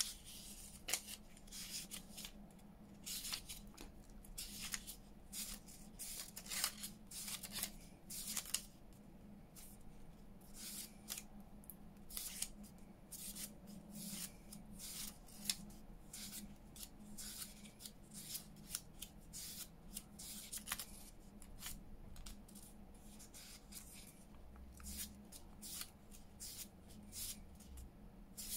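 Sheets of paper being handled and leafed through: short, crisp rustles and snaps at an irregular pace.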